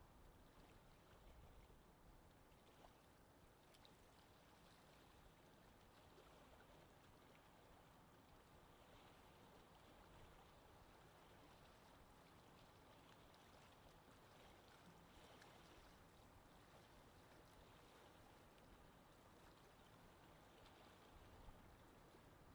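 Gentle wind: a faint, steady breeze without gusts.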